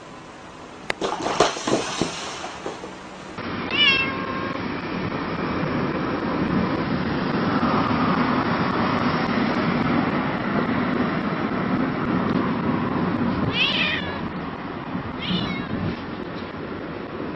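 A few sharp knocks and thumps, then a cat meowing inside a car, over steady road noise. One meow comes about four seconds in and two more near the end.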